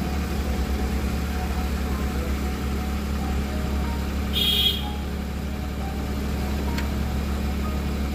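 Car engine idling steadily, a low even hum, with the car parked and about to set off. A short high-pitched sound cuts in briefly about four and a half seconds in.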